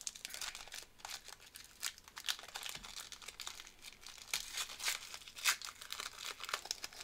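Foil wrapper of a trading-card pack being crinkled and torn open by hand, a dense run of irregular crackles and rips. The packs are stubborn and do not want to rip.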